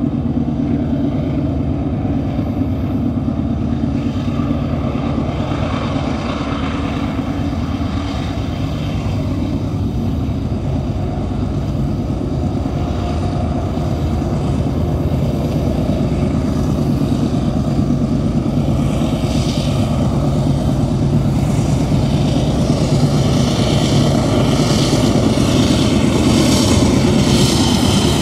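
Union Pacific diesel locomotives pulling a grain train out of a tunnel: a steady low engine rumble that slowly grows louder as they approach, with more high-pitched noise building in the second half.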